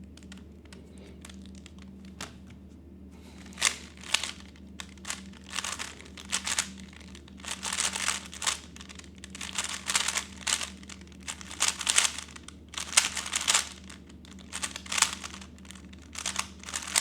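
A 3x3 speedcube's plastic layers being turned fast in a speed solve: rapid clicking and rattling in quick clusters with short pauses between them, starting about three and a half seconds in. A faint steady low hum sits underneath.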